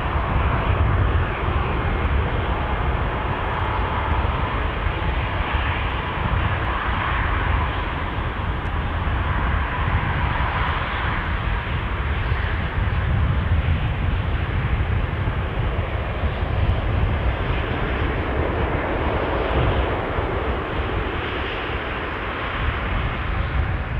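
Twin-engine jet airliner's engines at takeoff power as it rolls away down the runway: a loud, steady, deep rumble with a faint whine over it in the first half.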